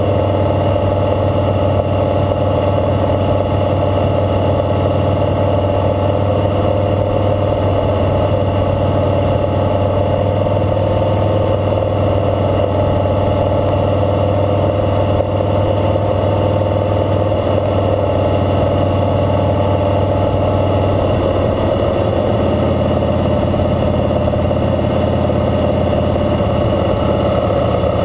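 Harley-Davidson Fat Boy Lo's V-twin engine running steadily at a slow parade cruise, heard from the rider's seat, with the engine note shifting about three quarters of the way through.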